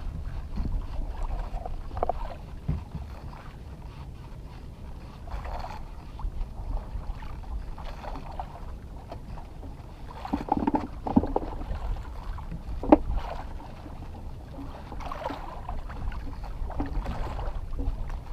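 Steady low rumble of a small fishing boat at sea, with a few sharp knocks on board, the loudest about thirteen seconds in.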